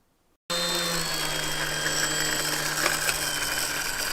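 Electric motor and propeller of a radio-controlled model airplane running steadily with a high whine. It starts abruptly about half a second in.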